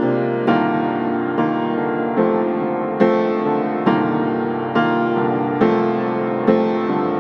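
Background music: a keyboard playing slow chords, a new chord struck a little more often than once a second, each ringing and fading.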